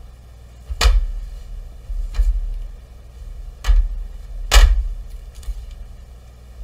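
Handling knocks from a tape-wrapped silicone rubber mould being turned over in the hands and set down on a metal sheet: four dull knocks over a few seconds, the last the loudest, with faint rustling between them.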